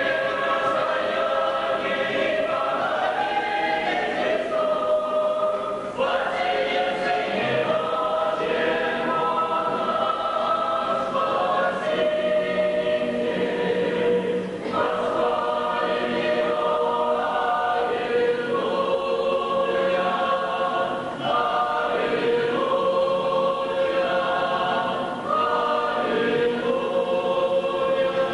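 A choir singing a slow hymn in long, held notes, phrase after phrase.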